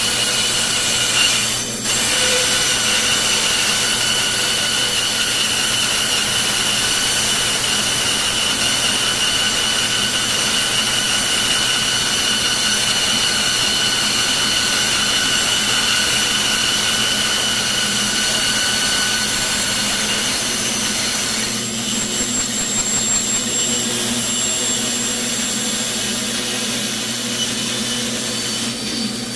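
Bandsaw running and cutting through a thick wooden block: a steady whine with a high ringing tone over the sound of the blade in the wood. About two-thirds of the way through, the high whine fades and the sound turns a little rougher.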